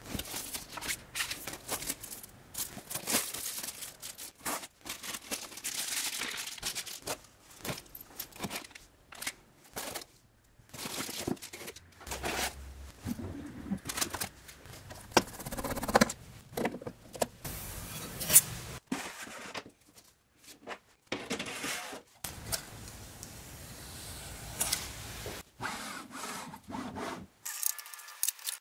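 Foam packing inserts being handled and pulled out of a laser cutter's enclosure: irregular rubbing and scraping with scattered knocks and clicks.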